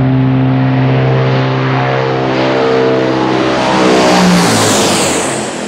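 Tupolev Tu-95's four NK-12 turboprops with contra-rotating propellers passing low overhead: a loud, steady propeller drone with a strong pitched hum. The roar peaks about four seconds in, and the pitch then drops as the aircraft goes over.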